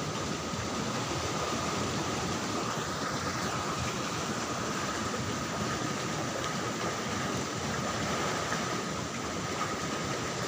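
Steady rush of water flowing in a stone-walled channel, with a faint steady high tone running through it.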